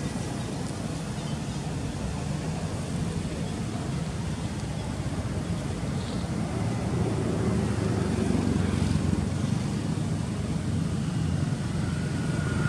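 A motor engine running steadily with a low hum, its pitch rising about halfway through and the sound growing louder near the end.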